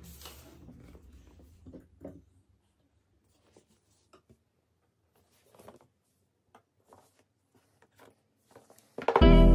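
Faint scattered clicks and rustles of objects being handled in a small room, typical of packaging being handled. About nine seconds in, loud background music with piano and guitar starts suddenly.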